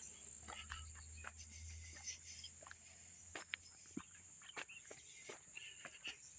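Footsteps crackling irregularly on dry leaves and twigs on a woodland trail, under a steady high-pitched drone of insects.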